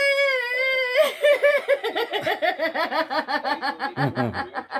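A woman laughing hard: a high-pitched squeal held for about a second, then a fast run of short ha-ha pulses, about five a second. A low male voice joins briefly near the end.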